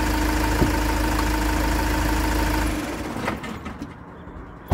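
Iveco Daily 65C17's 3.0-litre four-cylinder turbodiesel idling steadily to circulate fresh oil after an oil and filter change, then switched off almost three seconds in and dying away. Near the end a van door slams once.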